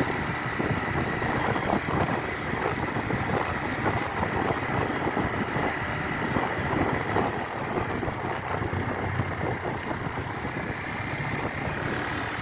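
Yamaha Xeon 125 carburettor scooter's single-cylinder four-stroke engine running steadily while riding along at an even speed.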